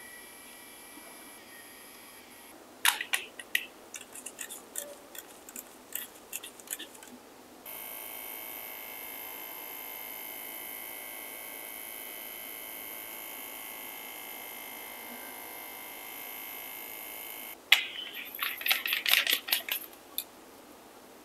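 Coreless-motor wireless tattoo pen running with a steady, even buzz for about ten seconds. Before it and near the end come runs of sharp clicks and rattles from the pen being handled and its top twisted.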